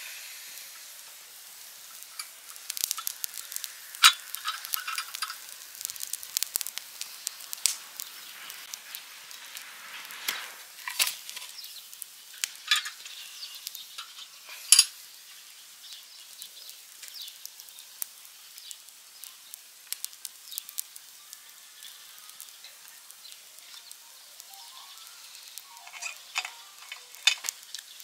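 Wood campfire crackling: scattered sharp pops and snaps over a soft hiss, the loudest pops about 4 and 15 seconds in.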